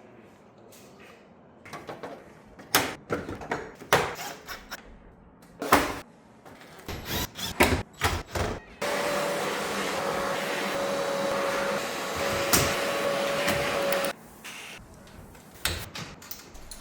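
Scattered knocks and clicks of parts being handled. Then a small motor runs steadily for about five seconds with a thin steady whine and cuts off suddenly, followed by a few more knocks.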